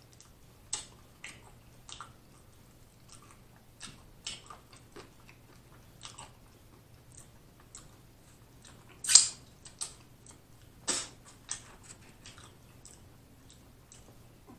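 Close-miked mouth sounds of a man eating: chewing with wet lip smacks and clicks, irregular, the loudest smack about nine seconds in.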